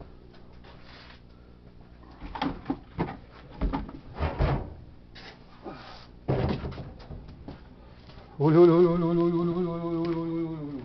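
A few short clattering and rustling noises, then about eight seconds in a man's voice holds one long, loud, wavering call for a couple of seconds.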